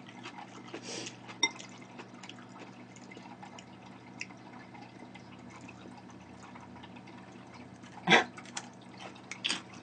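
Eating sounds close to the microphone: metal chopsticks clicking faintly against a bowl of salad, and a loud wet bite about eight seconds in, over a low steady hum.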